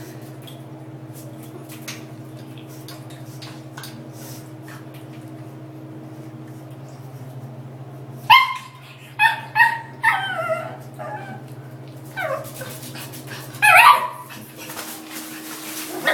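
A dog giving a string of about six short, high yips and whines a little past halfway, over a steady low hum. Before the calls there are only faint clicks.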